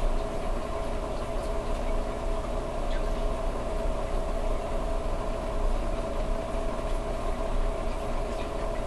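Reef aquarium equipment running: a steady pump hum at one unchanging pitch over a low, even wash of circulating water.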